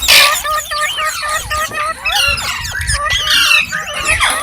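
Indian ringneck parrot calling: a harsh screech at the start, then a rapid, continuous run of chirps and warbling whistles that slide up and down in pitch.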